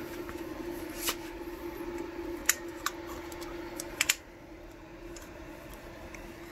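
A few sharp clicks and taps from handling a power cord and plug being plugged in, two close together about four seconds in, over a steady low hum.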